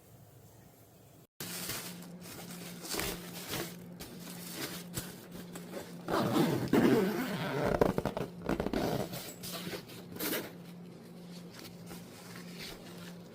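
Irregular rustling and scraping handling noises, busiest and loudest in the middle, over a faint steady hum.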